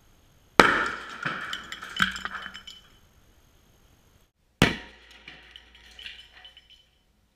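A sharp bang as a birdhouse bursts apart from heated, pressurized CO2, followed by about two seconds of debris clattering and clinking down onto concrete. A few seconds later comes a second sharp bang with more scattered clinks of falling debris.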